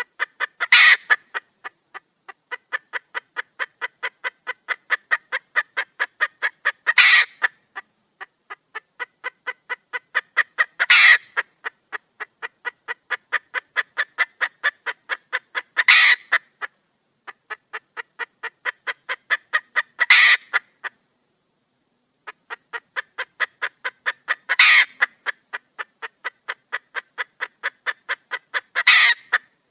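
Red junglefowl hen calling to attract a male: a fast, even run of clucks, about five a second, broken every four to five seconds by a single louder call, six times in all, with brief silent breaks between runs.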